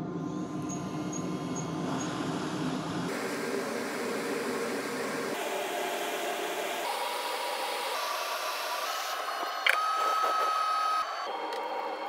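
SMD hot-air rework station blowing as it reflows solder under a phone charging connector: a steady hiss with a faint motor hum that shifts abruptly every few seconds. A steady high tone sounds for about a second near the end.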